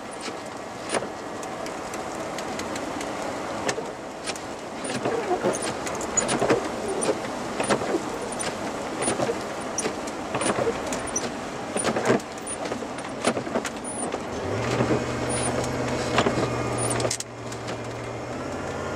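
Inside a truck driving slowly through falling snow: steady engine and road noise, with irregular knocks as the windshield wipers sweep heavy, wet snow off the glass and clumps of snow hit the windshield. A steady low hum comes in near the end.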